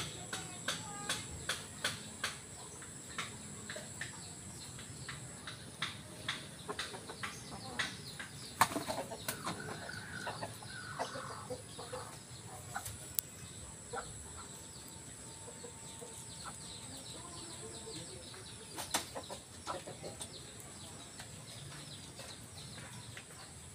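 Domestic chickens clucking and calling. Many short ticks fill the first eight seconds, a loud sudden noise comes about eight and a half seconds in, and a run of calls follows about a second later.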